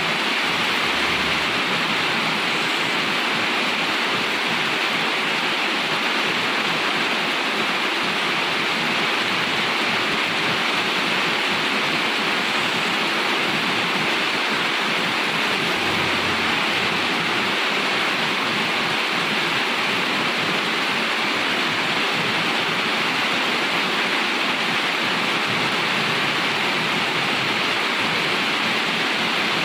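Steady rain: a dense, even hiss that does not rise or fall, with no distinct passing vehicle standing out.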